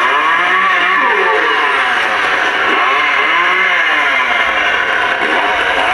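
Recorded chainsaw engine sound effect from a Leatherface animatronic's built-in speaker, revving up and down about once a second. It is loud.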